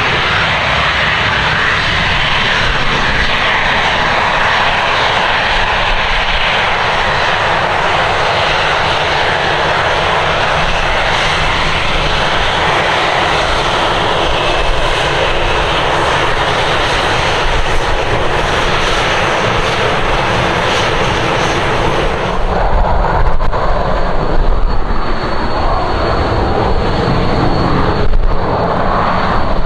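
Boeing 737-800's CFM56-7B jet engines running at taxi power as the airliner taxis past close by: a steady, loud whine and rush. About 22 seconds in the top of the hiss drops away and a deeper, uneven rumble comes in, with a faint steady whistle.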